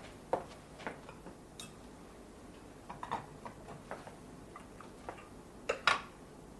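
China cups, saucers and plates clinking and knocking together as they are gathered and stacked by hand, in a dozen or so irregular clinks. The sharpest pair comes near the end.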